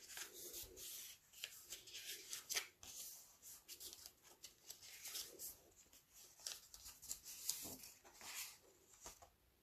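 Faint rustling and sliding of cardstock as it is folded and the creases are pressed down by hand, in short scattered strokes.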